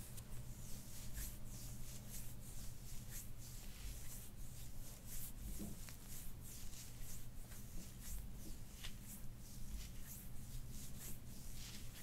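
Hands rubbing and kneading over skin and a cotton tank top during a shoulder-blade massage: soft, irregular rustling and swishing strokes, over a faint steady low hum.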